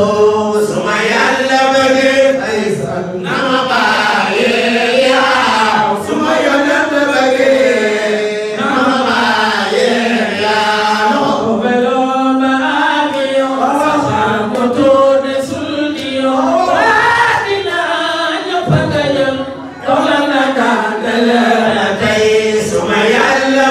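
Men chanting an Arabic devotional poem together through microphones, unaccompanied, in long held and gliding sung lines.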